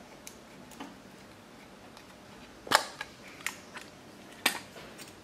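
Small metallic clicks and clacks of a Canon Pellix film camera's back latch and door being opened by hand, with two sharper, louder clicks, one about halfway and one near the end.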